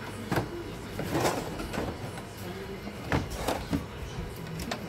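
Handling noise from a CRT television chassis being moved by hand: irregular knocks and clunks of the circuit board and its frame, about seven in all, over a faint steady hum.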